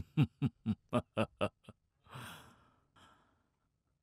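A man laughing heartily: a quick string of about eight short 'ha' pulses, each dropping in pitch, then a breathy exhale about two seconds in.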